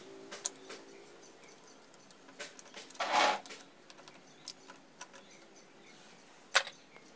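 Light metal clicks and clinks of a hand tool on a motorcycle clutch assembly as its parts are fitted, with a longer scrape about three seconds in and one sharp click near the end.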